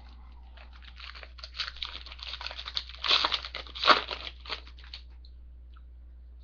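Trading card pack wrapper crinkling and being torn open. The rustle runs for about four seconds, is loudest about three to four seconds in, then stops.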